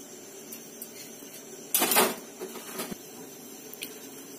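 Kitchen utensils handled: one short scraping clatter about two seconds in, then a few light clicks.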